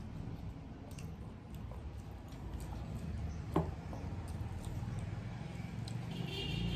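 Eating by hand: fingers mixing rice and curry on steel plates, with soft chewing and small scattered clicks, and one sharper click about halfway through. Background music comes in just at the end.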